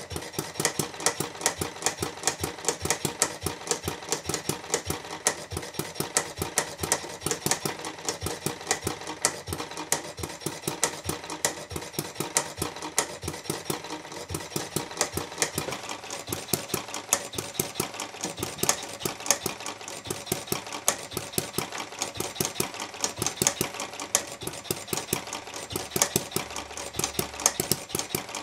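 Scale-model Little York hit-and-miss gas engine, spark-ignited with twin cast-iron flywheels, running. It makes a rapid, regular clatter of sharp clicks and knocks that goes on steadily.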